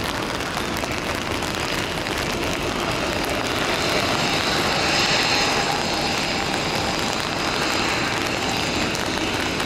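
Boeing 757 jet airliner on final approach: a steady rush of its engines with a faint high whine, growing a little louder about halfway through.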